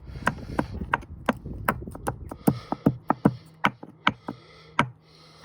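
A stone knocking and clattering inside a washing machine's turning drum: sharp, irregular hits over a rumble, thinning out toward the end. A low steady hum comes in about halfway.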